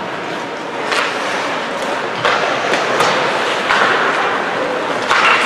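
Ice hockey in play: skate blades scraping and carving the ice in short hissing bursts, with a few sharp clacks of sticks and puck, over steady arena noise.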